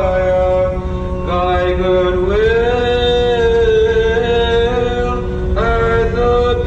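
A voice singing a slow melody in long held notes that shift pitch every second or two, over the steady low rumble of the vehicle on the road.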